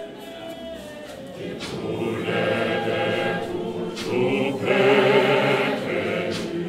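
A large choir of many voices singing together, growing louder about two seconds in and fullest around five seconds.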